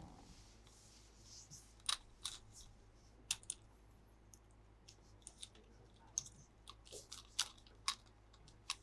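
Scattered small clicks and light crinkles of plastic being handled by hand, irregular, a few a second.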